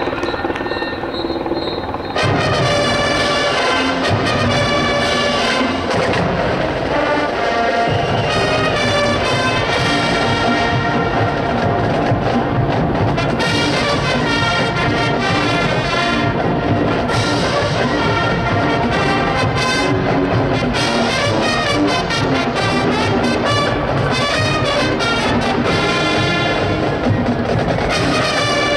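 High school marching band playing a field show, led by brass. After a softer opening, the sound gets louder and fuller about two seconds in.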